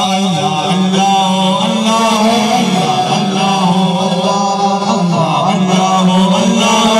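A man's voice chanting a melodic devotional recitation into a microphone, amplified through large PA loudspeaker stacks, holding long, slightly wavering notes.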